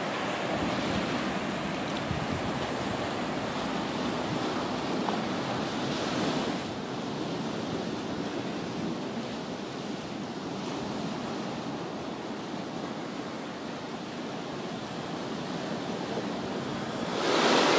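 Sea surf washing and breaking on a rocky shore, a steady rushing hiss with some wind; it drops a little in level about six and a half seconds in.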